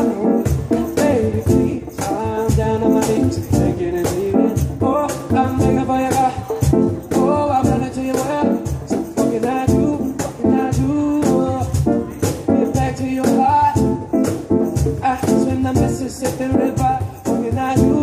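Live music: a man singing into a microphone over instrumental backing, with percussion keeping a steady beat.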